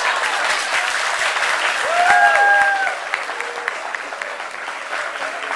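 Audience applauding and clapping, strongest for the first three seconds and then thinning. A voice calls out briefly about two seconds in.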